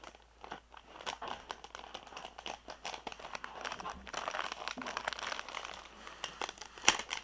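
Plastic mailer packaging crinkling and crackling as it is handled and pulled open, with a sharp click near the end.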